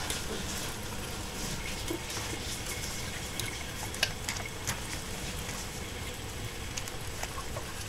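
Pet mice scurrying and climbing over fleece, wood and cage litter: light scratching and scattered small clicks, the sharpest about four seconds in, over a steady hiss.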